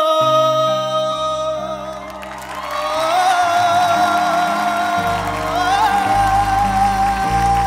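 A man singing one long held note in a flamenco-styled voice with vibrato, stepping up in pitch about three seconds in and again near the end, over sustained piano chords with a deeper bass coming in about five seconds in.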